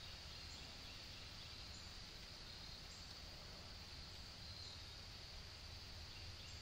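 Faint woodland ambience: a steady, high-pitched insect trill, with short higher chirps every second or so over a low rumble of background noise.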